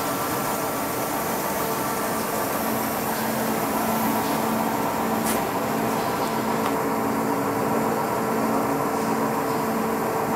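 Awea LP5025YZ bridge-type CNC vertical machining center running under power, a steady mechanical hum with several steady tones. A lower tone joins a couple of seconds in, and there is one sharp click about five seconds in.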